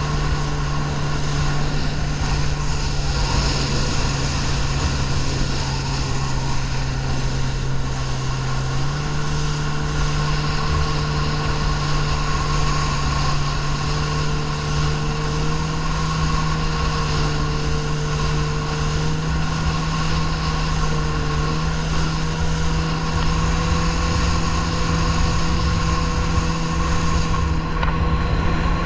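Yamaha watercraft engine running steadily at speed, with water rushing and spraying past the hull. The engine's pitch steps up slightly about nine seconds in.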